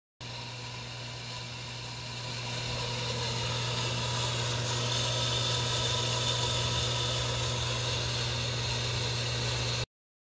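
Shallow well pump's electric motor running with a steady hum under a rushing hiss, the whole sound growing louder over the first few seconds and then holding steady.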